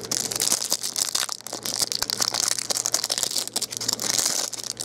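Clear plastic wrapper of a trading-card pack crinkling as hands tear it open and pull the cards out. It is a rapid, irregular run of small crackles.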